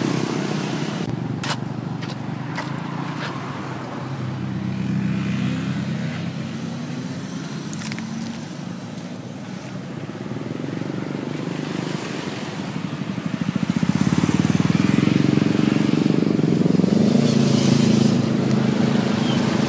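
Road traffic: vehicle engines running and passing, with pitch rising and falling as they go by. About two-thirds of the way through, an engine close by grows louder and keeps running with a steady beat. A few sharp clicks come in the first couple of seconds.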